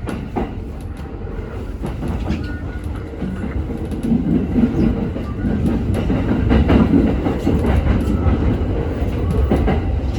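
A JR East 209 series 1000-subseries electric train accelerating: a rumble of motors and wheels that grows louder about four seconds in, with knocks from the wheels over rail joints.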